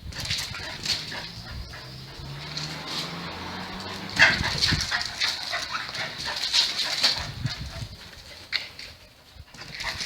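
A dog vocalizing, a run of short, sharp sounds starting about four seconds in.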